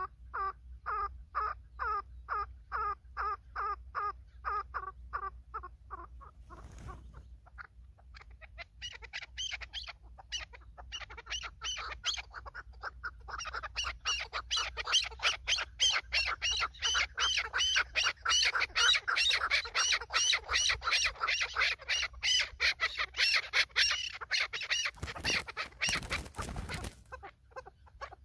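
Chukar partridges calling, a fast string of repeated clucking notes, about two or three a second. After a short lull near the quarter mark, several birds join in with overlapping calls that grow much louder, before a brief rough rustling burst near the end.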